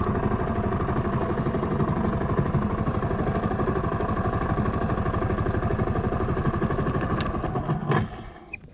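Suzuki GrassTracker BigBoy's air-cooled single-cylinder engine idling steadily, then switched off about eight seconds in, with a small click right after it dies away.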